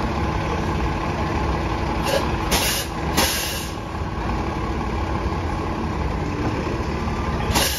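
Articulated city bus idling at a stop, a steady engine rumble, with two sharp hisses of released air a little after two and three seconds in and another just before the end.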